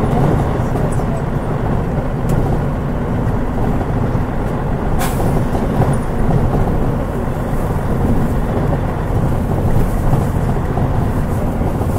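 Mitsubishi Fuso Aero Star city bus with a turbocharged 6M70 diesel engine driving along, its engine and road noise a steady low drone. There is a brief hiss about five seconds in.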